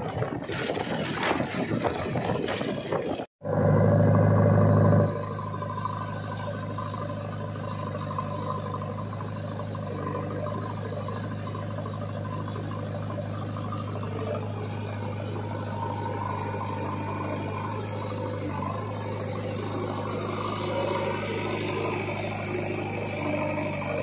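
Rough, even noise of travel along a road for about three seconds, then after a sudden cut a JCB 3DX backhoe loader's diesel engine running steadily under load as its front bucket pushes mud, louder for the first second and a half, then settling into a steady drone.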